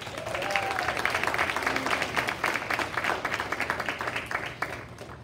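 Audience applauding. The clapping starts suddenly and dies away near the end.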